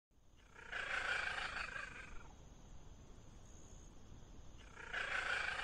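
A cat calling twice: two drawn-out, pitched meowing calls, the first about a second in and the second about four seconds later.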